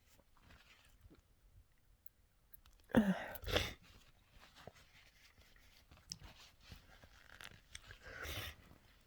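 Small breath and nose sounds from a person with a cold after a sneeze: a short voiced exhale and a sniff about three seconds in, a longer breathy sniff near the end, and light rustling and clicks between.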